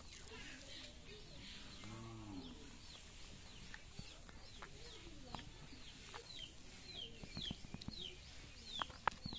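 Domestic chickens clucking, with a run of short, high, falling chirps repeating about twice a second through the second half. A few sharp clicks come near the end.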